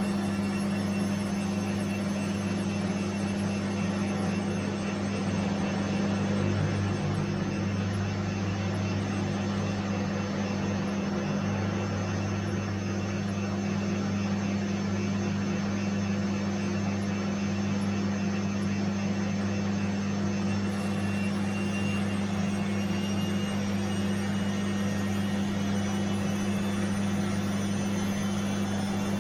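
Bosch washing machine running with a steady, even hum.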